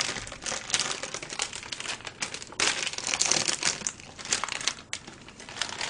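Plastic food packaging crinkling and rustling as it is handled, in dense irregular crackles.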